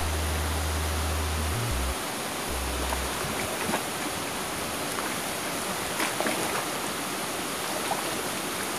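Steady rushing noise like running water at the pond's edge, with a few faint splashes and knocks from the hooked redtail catfish thrashing at the surface. A low bass line of background music stops about three seconds in.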